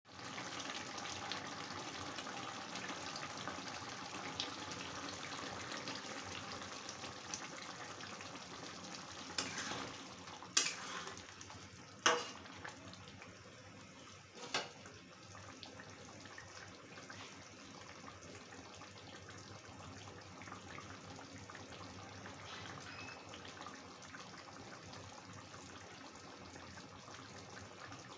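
Chicken curry gravy simmering in a kadai: a steady bubbling hiss that grows quieter after about nine seconds. A few sharp clicks or knocks come between about nine and fifteen seconds in.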